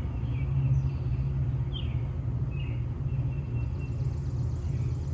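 Backyard ambience: a steady low rumble with short bird chirps now and then.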